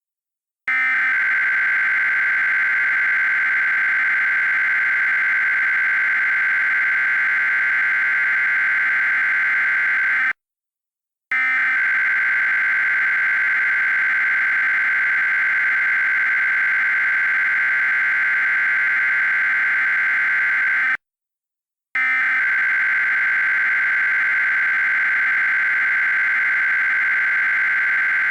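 Emergency Alert System digital header tones: a loud, steady, buzzy data tone sent in long bursts of about ten seconds each, with a one-second break between them, twice.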